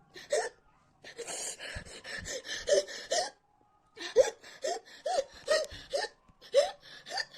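A woman's gasping hiccups with ragged, breathy panting: a stretch of heavy breathing, then short, sharp catches in the throat about twice a second. The hiccups are set off by an extremely hot chili chip burning her throat.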